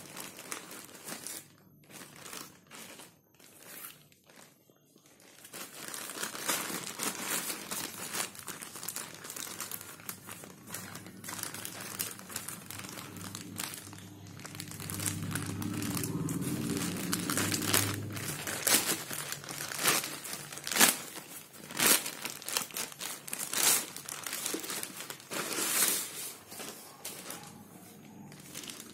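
Grey plastic courier mailer bag being handled and torn open by hand: crinkling plastic, sparse at first and then continuous, with a run of sharp, loud crackles as the plastic rips in the second half.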